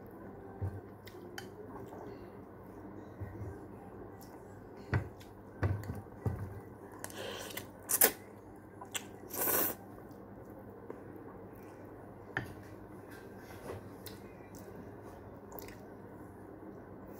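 A person eating Maggi instant noodles: quiet chewing and small mouth clicks, with a few loud slurps of noodle strands partway through.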